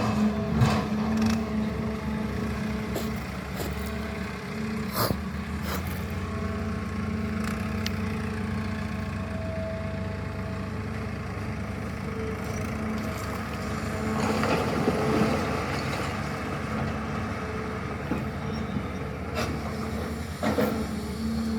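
Heavy diesel engine running steadily, growing louder for a couple of seconds around the middle, with a few sharp metal knocks and clunks.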